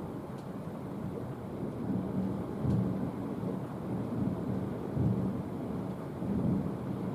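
Rolling thunder: a continuous low rumble that swells and fades, with louder peals about three seconds in, at five seconds, and again near the end.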